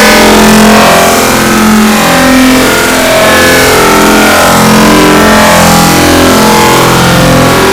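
Two sneeze sound effects sped up four times and layered over themselves a huge number of times, merged into a loud, continuous wall of sound with shifting tones.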